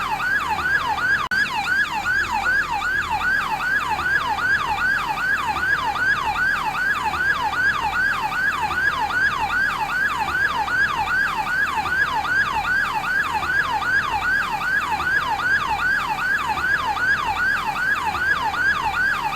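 Yelp siren of a Brazilian fire brigade Advanced Support Unit ambulance, sweeping rapidly up and down in pitch at about two and a half cycles a second, with a momentary dropout about a second in.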